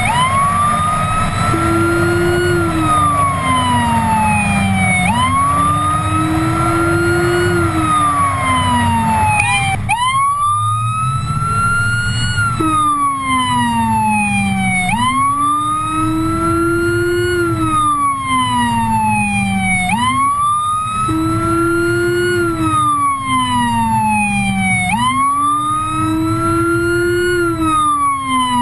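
Electronic siren wailing, one rise and slower fall about every five seconds, with the Whelen Howler's deep low-frequency tone sweeping in step with it far below. The low tone drops out for a few seconds near the middle and comes back, over the road and engine noise of the moving patrol car.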